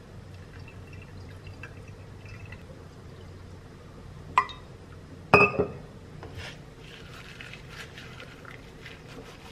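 Water poured from a glass pitcher trickling onto a ceramic citrus juicer, a faint running sound with small drips. About four and a half seconds in comes a sharp click, then a second later a louder ringing glass clink.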